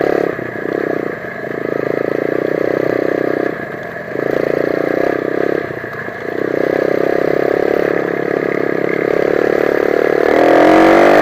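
125 cc dirt bike engine running on throttle. It drops off briefly three times as the throttle is eased, then revs up with a rising pitch near the end.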